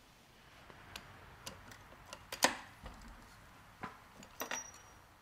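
Metal tools clinking and knocking as a ratchet and socket are handled and fitted onto a motorcycle steering stem's ring nut: a handful of separate sharp clinks, the loudest about halfway through, and a short metallic ring near the end.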